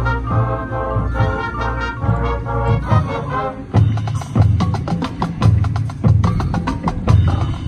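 High school marching band playing: held brass chords over a low bass, then about four seconds in a percussion-driven passage of quick drum strikes under short, low brass notes.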